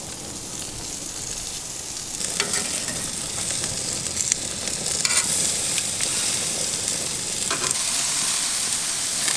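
Chicken sizzling on a grill: a steady hiss that grows a little louder about two seconds in, with a few short clicks.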